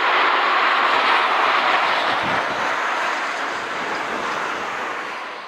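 Two CFM56-5B turbofan engines of an Airbus A320-214 at takeoff power as the jet climbs away: a steady rushing jet noise that slowly fades over the last few seconds.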